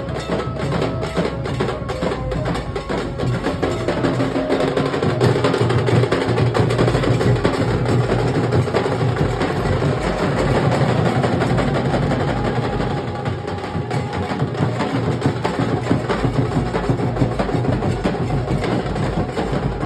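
Nasik dhol drums playing a fast, dense rhythm: sharp stick strokes over deep bass drum beats, loud and steady throughout.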